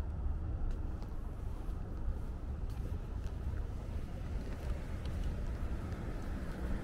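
Street ambience at a wide intersection: a steady low rumble of road traffic, with a few faint ticks over it.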